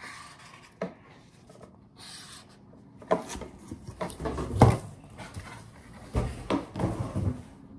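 A large sheet of corrugated cardboard being handled and lifted: irregular rubbing, scraping and knocks against the table, with a brief hiss about two seconds in.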